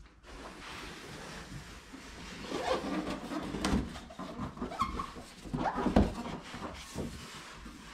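Large cardboard box sleeve being slid up and off a styrofoam-packed TV: cardboard scraping and rubbing against the packing, with scattered knocks and the loudest bump about six seconds in.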